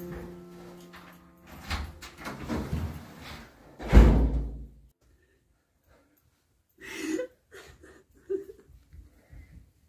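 Sustained music notes with a few knocks, ending in a loud door slam about four seconds in that cuts the music off. After a silence come a few short breaths.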